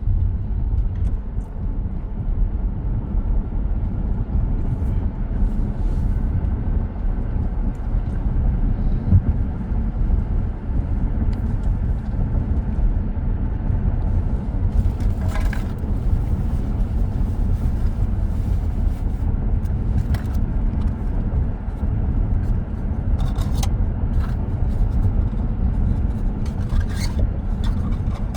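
Steady low road and tyre rumble inside the cabin of a moving Tesla Model X, an electric car with no engine note, with a few brief clicks about halfway through and near the end.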